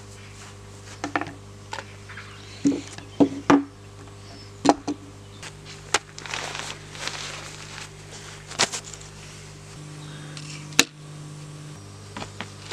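Tools and wood being set down and handled on a board laid across plastic sawhorses: a string of separate knocks and clatters, with rustling around the middle, over a steady low hum.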